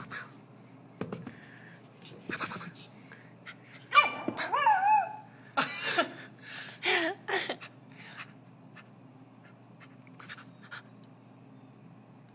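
Japanese Chin puppy giving high, whining calls that wobble up and down in pitch, in two bouts about four and seven seconds in.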